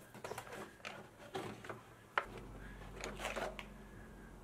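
Faint scattered clicks and knocks of plastic parts being handled as the air filter housing is lifted off the throttle body. A faint steady low hum comes in about halfway through.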